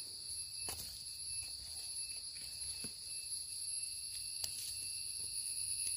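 Steady high-pitched buzz of forest insects, with a few soft clicks and scrapes as a knife trims soil from the base of a wild mushroom.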